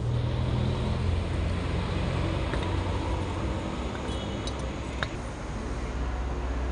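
Steady low machine hum with background noise, broken by a few faint clicks and a brief light metallic tinkle about four seconds in.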